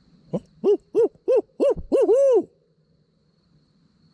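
Owl hooting in the barred owl pattern: about seven short, arched hoots in quick succession, the last one drawn out, loud and close. It is an owl locator call meant to make a roosted gobbler gobble.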